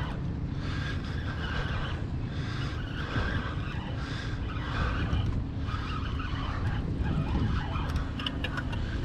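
Spinning fishing reel whirring under load as a hooked fish pulls against a bent rod, over a steady low rumble.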